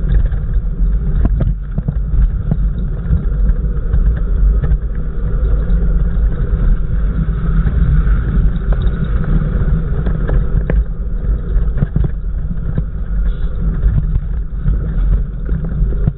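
Off-road 4x4 vehicle's engine running steadily and loudly, with a few short knocks and bangs over the rumble.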